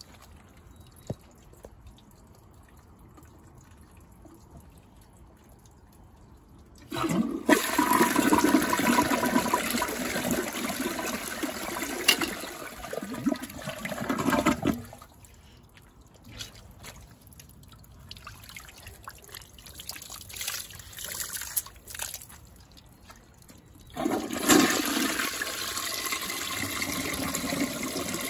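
Two toilet flushes, each sweeping a cloth towel out of the bowl: the first starts about seven seconds in and rushes for about eight seconds, then water trickles in as the bowl refills, and the second starts near the end.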